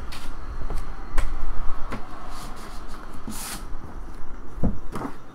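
Cardboard trading-card hobby box being handled: scattered knocks and taps as it is turned and its lid moved, with a brief scraping rustle about three and a half seconds in.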